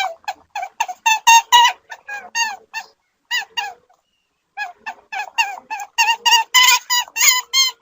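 An animal giving a rapid series of short, squeaky pitched calls, several a second, with a pause of under a second around the middle.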